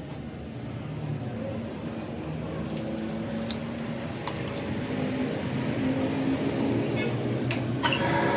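Metal lathe running, its tool turning down a steel truck axle shaft and peeling off a long thin chip: a steady machine hum with a few light clicks, growing slowly louder. Near the end the sound turns brighter and hissier.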